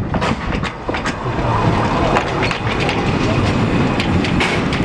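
Kč4 narrow-gauge steam locomotive and tender rolling slowly past close by, with irregular clicks and clanks from the wheels on the rail and from the running gear over a steady running noise.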